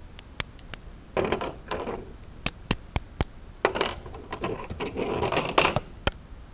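Old metal keys and a metal curtain ring clinking against each other in the hands: a series of short, sharp metallic tinks, some ringing briefly and high, with rustling handling noise between them. The pieces are being tried for how they ring, as parts for a wind chime.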